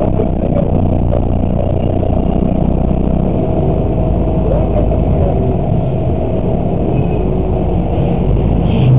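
Bus engine running with road noise, a steady low rumble heard inside the cab.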